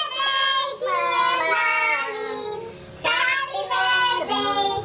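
A small family group singing a birthday song, a child's voice the most prominent, with a short break between lines a little past the middle.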